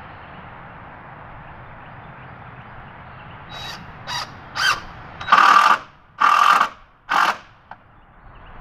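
Cordless drill driving a screw into a wooden board: three short blips of the trigger, then three longer runs of about half a second each.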